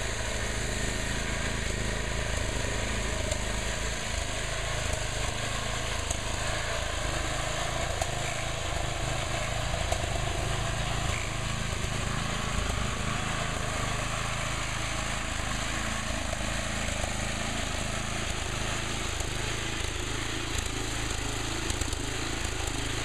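Engine of a Sears Custom 7 garden tractor, rebuilt as an off-road mud mower, running steadily as the tractor is driven over rough dirt trail.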